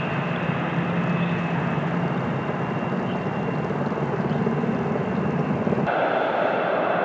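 Kaman K-MAX K-1200 intermeshing-rotor helicopter, with a single turboshaft engine, running steadily under power while lifting a sling load of logs on a long line. The rotor noise carries a steady high whine. About six seconds in the sound changes abruptly: the low rumble drops away and the middle of the sound becomes louder.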